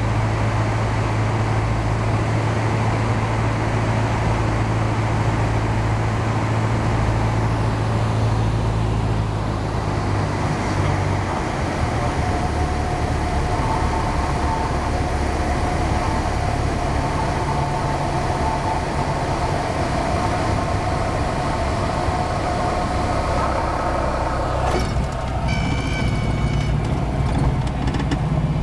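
Cessna 172SP's four-cylinder Lycoming engine and propeller heard inside the cabin through the final approach and landing; the engine note drops about ten seconds in as power comes off for the flare. A thin steady high tone runs over the engine for much of the flare, and the sound changes near the end as the aircraft rolls on the runway.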